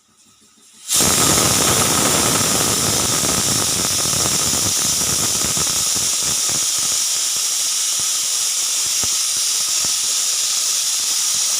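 Pressure cooker whistle blowing off: a loud steam hiss starts suddenly about a second in and holds steady, with a faint steady whistle tone and a crackling splutter that thins out over the following seconds. The cooker has come up to pressure and is venting steam through its weighted whistle.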